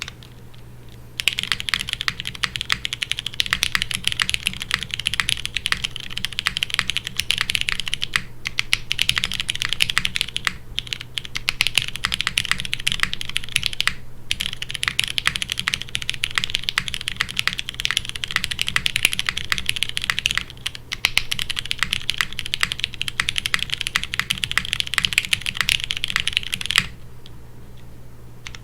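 Continuous fast typing on a gasket-mounted aluminium-plate mechanical keyboard with Cherry MX Brown Hyperglide tactile switches and GMK keycaps. It starts about a second in, has a few brief pauses, and stops shortly before the end.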